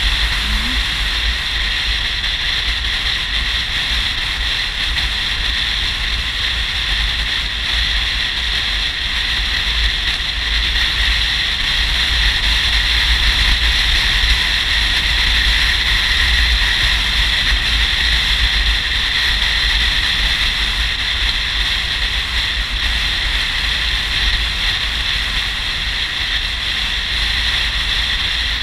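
Touring motorcycle under way at steady road speed: constant wind rush on the microphone over the engine and tyre noise, with a deep rumble underneath.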